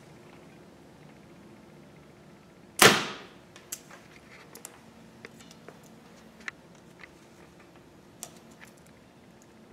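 Mathews TX-5 compound bow shot once, about three seconds in: a single sharp crack from the string release with a short ringing tail. A few faint clicks follow.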